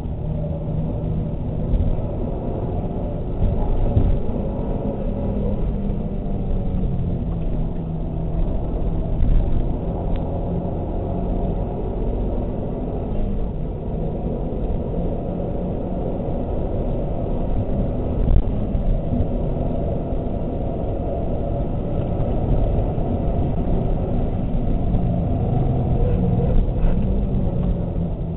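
Mazda 3 MPS's turbocharged 2.3-litre four-cylinder engine running under load, heard from inside the cabin over steady road and wind rumble, its pitch rising and falling.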